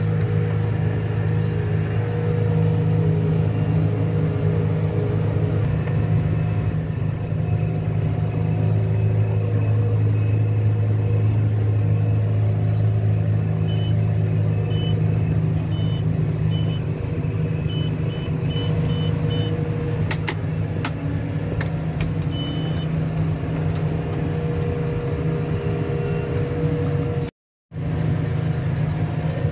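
New Holland tractor engine running steadily under load while mowing grass with a Krone mower, a low even drone heard from inside the cab. A few short high beeps sound around the middle, and the sound drops out to dead silence for an instant near the end.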